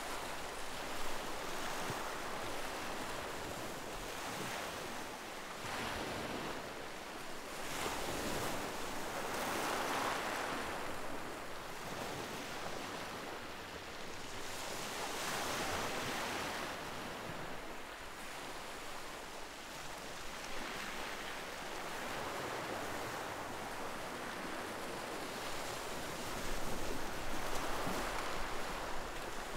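Ocean surf: waves breaking and washing in, a steady hiss of water that swells and fades every few seconds.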